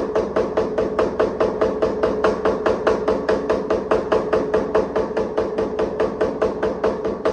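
Hammer blows forging a damascus steel knife blade, evenly spaced at about five a second, each with a metallic ring.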